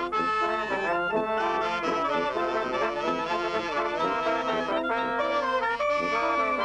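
A wind band playing: trumpets and clarinets sounding a tune together in several parts, steady and continuous.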